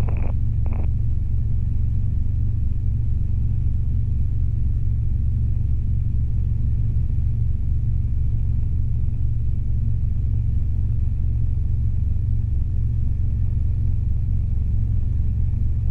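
Robinson R22 helicopter engine and rotor drone heard in the cabin: a steady, unchanging low rumble in powered flight. A brief click sounds just under a second in.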